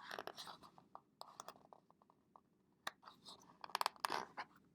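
Pages of a picture book being turned and handled: faint paper rustling with scattered soft clicks and scratches.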